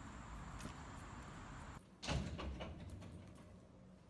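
Steady background rumble that cuts off just before two seconds in, then a door banging shut about two seconds in, followed by a few lighter clicks.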